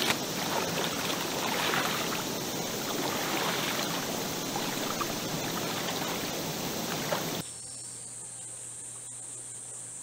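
River water running and lapping around dyed cloth being rinsed in a mountain stream. About seven seconds in it cuts off suddenly to a quieter, steady high-pitched insect chirring.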